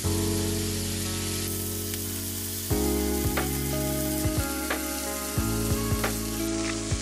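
Salted beef skirt steak sizzling steadily on a hot grill grate, with scattered pops and crackles. Background music with sustained chords plays under it, changing chord twice.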